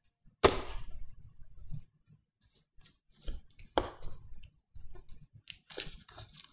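Stiff cardboard game tiles being handled and their plastic wrapping picked at and torn: a few sharp rustles, one about half a second in and another near the four-second mark, small clicks between, and denser crinkling near the end.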